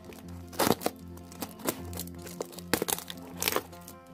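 Plastic wrap and packing tape on a parcel crackling and crinkling as they are cut and pulled open with a box cutter, in several sharp crackles about a second apart.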